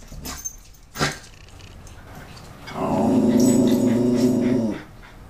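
Cairn terrier giving one low, steady growl of about two seconds, a territorial warning at an animal outside. A short sharp knock comes about a second before it.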